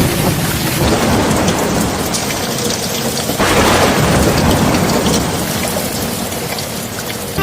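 Steady heavy rain with thunder rumbling; the hiss gets brighter about three and a half seconds in.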